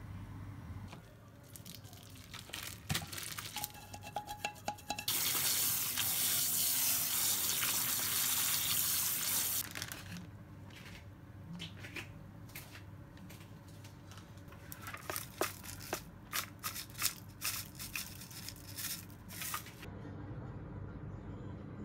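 Kitchen sounds: scattered light clicks and knocks, then a water tap running hard for about five seconds and stopping abruptly, then more scattered clicks and knocks.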